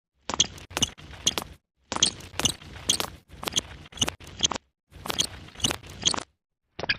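Cartoon sound effects: short runs of quick, sharp clicks and squeaks, separated by brief silent gaps.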